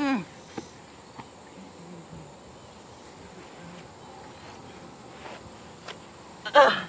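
Short shouts from the wrestlers, each falling quickly in pitch: one right at the start and a louder one near the end. Between them, a few faint knocks over a steady high hum.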